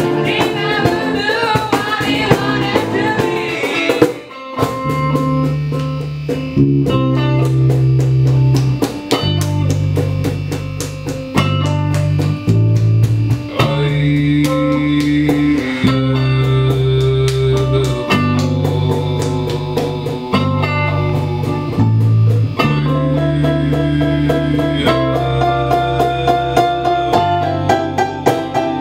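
A small band playing: acoustic guitar over held low bass notes and steady percussion hits, with singing in the first few seconds that breaks off around four seconds in before the instruments carry on.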